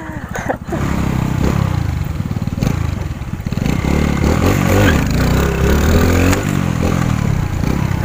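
Small stunt motorcycle's engine running under the rider, with wind rushing over the microphone. It drops to a low, pulsing putter at the start, then picks up about a second in and revs on, its pitch rising and falling with the throttle.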